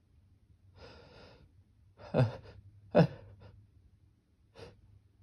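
A person's breathy inhale, then two short, sharp gasps about a second apart, each falling in pitch, and a fainter breath near the end: the catching breaths of a sneeze building up.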